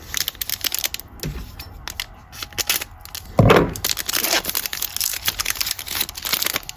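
Plastic trading-card pack wrapper crinkling and tearing as it is opened and handled, a dense run of crackles with one louder rustle about three and a half seconds in.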